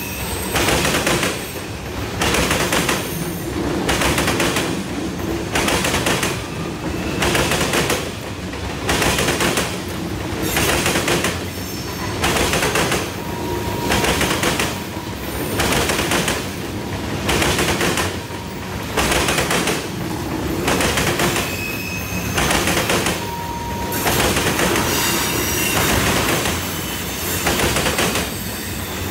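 Railroad cars rolling past on the track, the noise swelling and dipping in a steady rhythm about every second and a half as each car goes by. A few brief, faint wheel squeals come through.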